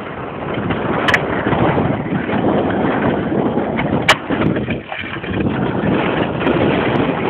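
Skateboard wheels rolling over rough asphalt, a steady grainy rumble, with two sharp clacks about one second and four seconds in.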